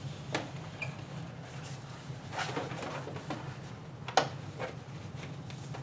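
Handling noise as a rolled photo backdrop with a plastic rod sewn into its end is fitted onto hooks inside a Shotbox light box: soft rustling and a few small clicks and taps, with one sharper click a little past four seconds in. A low steady hum runs underneath.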